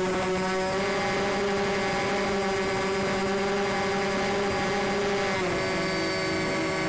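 Motors and propellers of a model C-124 Globemaster airplane in flight, heard from a camera on board: a steady droning whine that rises slightly just under a second in and drops in pitch about five and a half seconds in.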